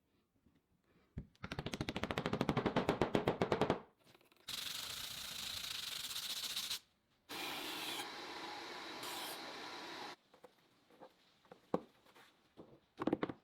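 Workshop tool noise: a rapid, even rattle for about two seconds, then two spells of steady hissing, the first brighter than the second, then a few light taps near the end.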